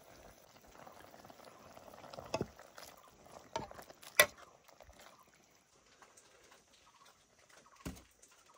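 Faint bubbling of a pot simmering on the fire, fading after about three seconds, with a few sharp knocks or clinks of cookware; the loudest knock comes about four seconds in.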